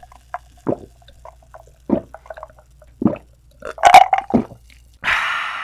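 Cola being gulped down: four or five separate swallows about a second apart, then a breathy exhale near the end.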